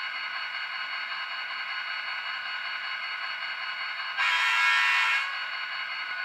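HO-scale GP40-2 model locomotive's sound decoder idling through its small onboard speaker, a steady thin engine drone. About four seconds in, a louder tone sounds for about a second.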